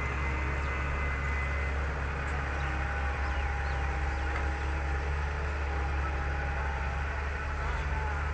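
Fiat-Hitachi FH200.3 excavator's diesel engine running steadily as it digs and lifts its loaded bucket, a continuous low drone.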